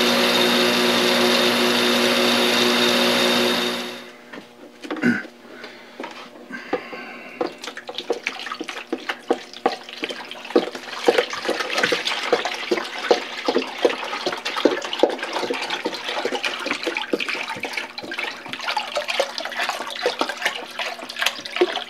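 A 6-inch bench buffer with a Scotch-Brite wheel runs steadily, then stops abruptly about four seconds in. After that, Evaporust rust remover is poured into a plastic tub: a continuous splashing, bubbling pour with many small crackles that lasts to near the end.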